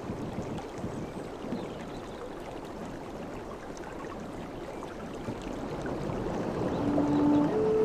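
Sea waves washing, the noise swelling over the last few seconds. A low, steady flute note comes back in near the end and moves up to a higher note.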